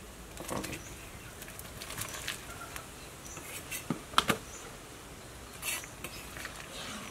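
Metal ladle clinking and scraping against a large cooking pot while stirring rice porridge: a few scattered knocks, the loudest a little over four seconds in.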